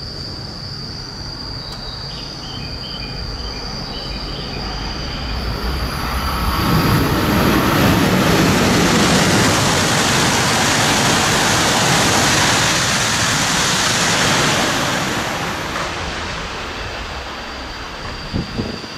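E5-series Shinkansen bullet train passing through the station at high speed without stopping: a rush of air and rolling noise builds over a few seconds, stays loud for about eight seconds, then fades away.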